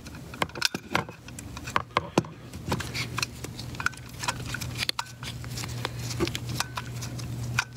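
Screwdriver backing out the small screws that hold a projector lamp module's bulb in its housing, with hands shifting the plastic-and-metal module: a string of small irregular clicks and ticks with a few short squeaks over a steady low hum.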